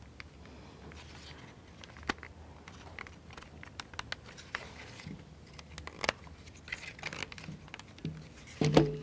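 Small clicks and taps of laser-cut plywood model parts being handled and pressed into place on a wooden model car, with a couple of sharper knocks about two and six seconds in.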